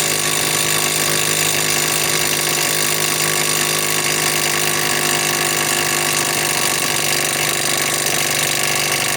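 Flex FX1451 mid-torque cordless impact wrench hammering steadily in reverse on a hitch ball nut, running without a break. The nut does not break loose: it is on tighter than the wrench can undo.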